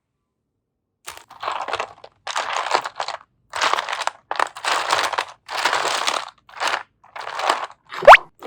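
Slime being pressed and squeezed by hand, giving a series of crackly crunching squishes about every half second. Near the end comes a sudden, very loud rising sound effect.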